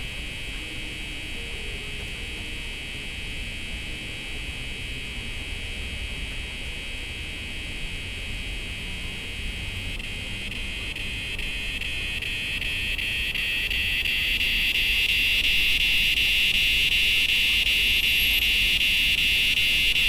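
Cicada chorus in the trees: a steady, high buzz that swells louder from about halfway through.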